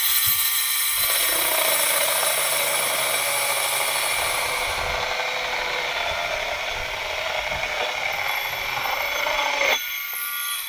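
Homemade battery chainsaw, a 12-volt boat-winch DC motor run on 24 volts driving an old McCulloch chainsaw's chain, cutting through a piece of wood. The motor's whine drops in pitch as the chain bites about a second in, and the chain rasps steadily through the cut. Near the end it breaks through and the motor runs free again.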